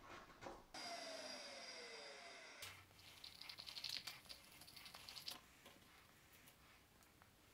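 Faint scraping and scratching of a wooden stick stirring black filler paste in a small plastic cup, after a faint falling tone lasting about two seconds.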